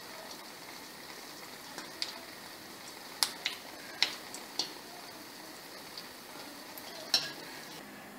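Malpua batter sizzling steadily as it deep-fries in hot oil over a medium flame. A handful of sharp clinks, about six in all, come from a wire-mesh spider strainer touching the metal pan.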